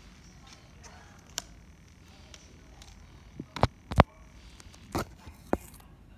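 Playing cards being handled and set down on a table: a handful of sharp taps and clicks, the loudest two close together a little past halfway.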